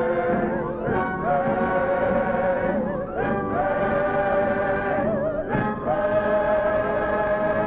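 Slow, mournful choral music: voices sing long held notes with vibrato, moving to a new note every one to three seconds.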